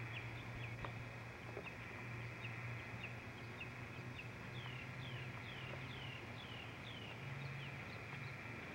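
Birds chirping over and over in short notes that each fall in pitch, at times several a second, with a steady low hum underneath.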